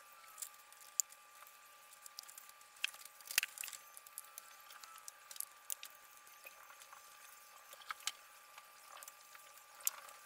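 Faint, scattered clicks and light taps, as of hands and tools working connectors and parts, with a cluster of them about three and a half seconds in.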